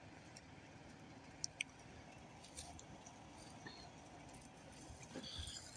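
Near silence: a faint steady background hiss with two soft clicks about a second and a half in.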